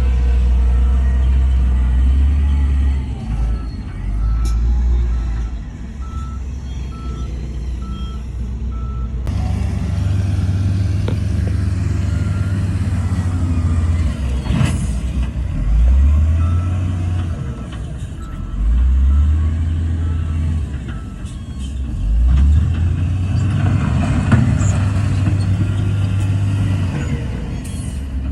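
Heavy diesel earthmoving machinery running and working, the engine note swelling and easing again and again under load. A reversing alarm beeps steadily for about six seconds in the first third.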